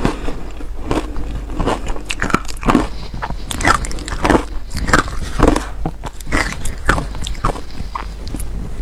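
Close-miked crunching of powdery shaved ice as it is scooped and chewed: a run of short, crisp crunches at about two a second, played slightly sped up.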